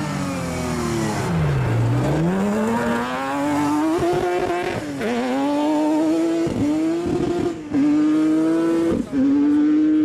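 Rivet Nissan off-road rally buggy's engine under hard acceleration. The revs fall sharply to a low point about two seconds in, then climb again. A run of quick upshifts follows, each heard as a brief break in the sound before the engine pulls again.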